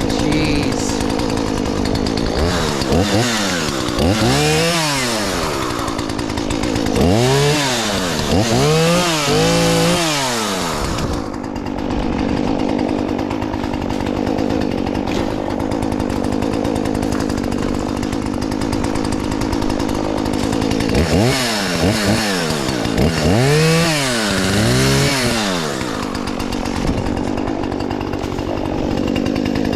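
Two-stroke chainsaw running at idle, revved up and back down in a series of quick swells several times in the first ten seconds and again a little past twenty seconds in.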